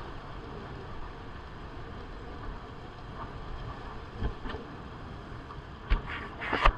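Steady rush of wind and road noise from a moving motorcycle. Several sharp knocks come near the end.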